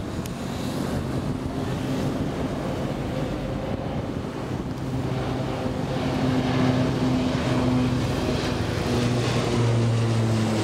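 Bombardier Dash 8 twin-turboprop airliner climbing out just after takeoff and passing overhead. The engines and propellers make a steady drone that grows louder about six seconds in, then drops slightly in pitch near the end as the aircraft goes past.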